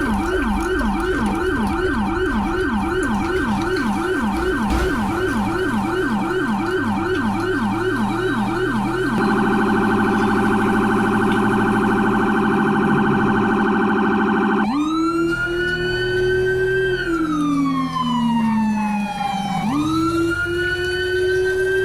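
Electronic siren cycling through its tones: a fast yelp of about three sweeps a second, then a rapid high-low warble, and about two thirds of the way in a slow wail that rises and falls.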